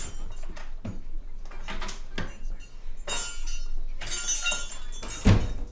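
Glass clinking and shattering in a series of separate crashes, with ringing after the bigger ones, then a heavy thump near the end.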